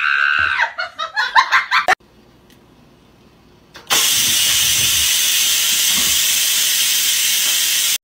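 Electric pressure rice cooker venting steam through its valve: a loud, steady hiss that starts suddenly about four seconds in.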